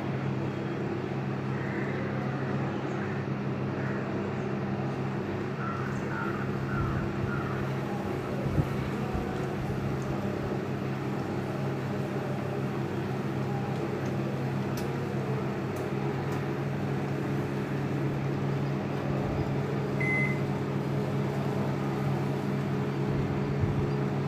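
Oven running steadily with a low hum as it preheats to 160 °C. A single short high beep sounds near the end, the oven signalling that it has reached temperature.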